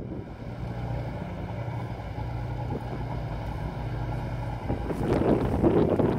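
A boat's engine running steadily with a low, even hum. About two-thirds of the way in, louder, gusty rushing from wind on the microphone joins it.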